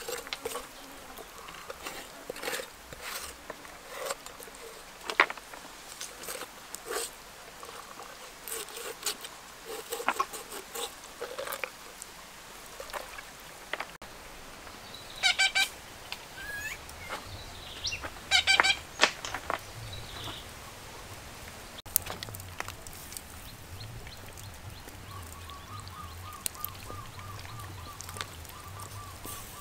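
Cleaver chopping through a raw duck on a stone block, a run of sharp knocks through the first half. Then two short animal calls, and a rapid trill near the end.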